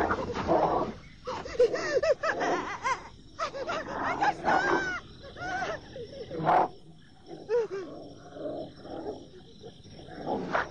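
Wolves growling in a string of short calls that rise and fall in pitch.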